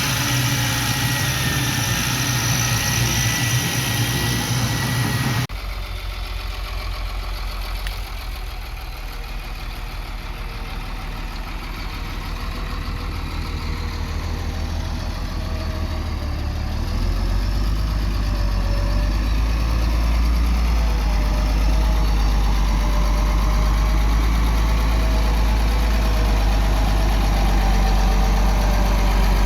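A heavy machine's diesel engine runs steadily. The sound changes suddenly about five seconds in, then grows louder and deeper about halfway through.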